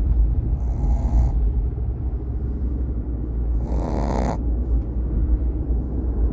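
A dog snoring: two drawn-out snores about three seconds apart, over a steady low rumble.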